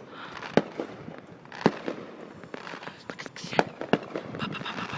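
Fireworks going off: a run of sharp bangs at irregular intervals, some close together, with noise between them.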